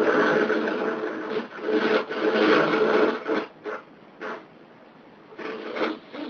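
A person's rasping, breathy nasal sound lasting about three and a half seconds, then several short, sharp breaths or sniffs.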